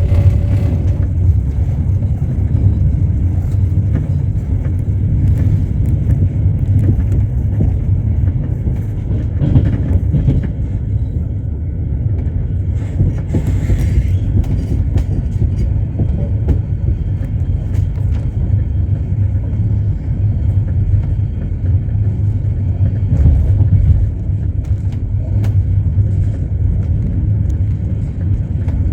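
Passenger train running along the track, heard from inside the carriage: the steady low rumble of wheels on rails with scattered faint clicks.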